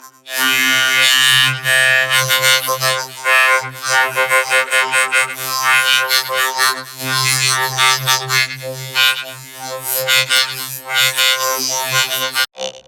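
Synthesizer-like electronic music with a steady low droning pitch under a busy high texture; it cuts out briefly near the end.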